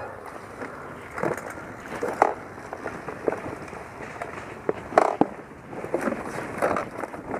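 Dirt bike ridden slowly over a rough, rutted forest trail, heard from a helmet-mounted camera. There is a steady rumble of riding noise with irregular knocks and rattles from the bike and the ground, the sharpest about two seconds in and the loudest about five seconds in.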